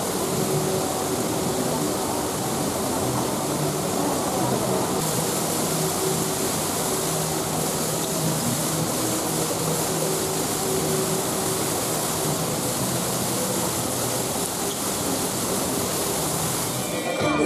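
Indoor rain-curtain fountain: many thin streams of water falling from a ring in the ceiling, making a steady, even hiss.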